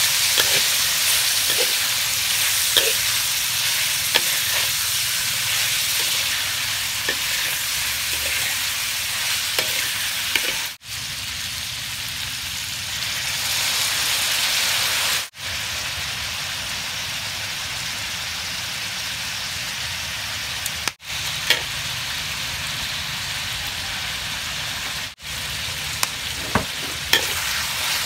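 Pork sizzling as it stir-fries in hot oil in a metal wok, with the metal spatula clicking and scraping against the pan as it is turned. The sizzle is steady but cuts out abruptly for a split second a few times.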